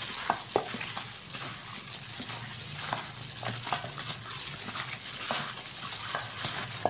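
Raw pork ribs being mixed and squeezed by hand with seasoning in a stainless steel bowl: wet squelching and the crinkle of a plastic glove, with a scatter of short sharp clicks as the meat hits the bowl.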